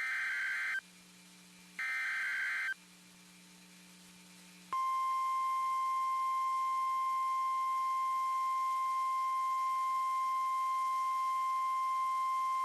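NOAA Weather Radio emergency alert: two short buzzy digital SAME header bursts about a second apart, then after a pause a loud steady single-pitch warning alarm tone begins about five seconds in. The tone announces a tornado warning about to be read out.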